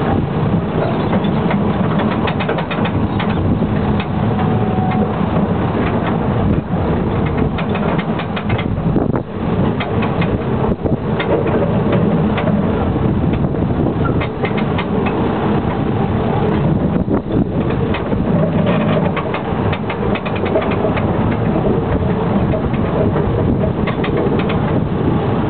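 Narrow-gauge light railway train running, a continuous mechanical rumble with many irregular rattling clicks throughout.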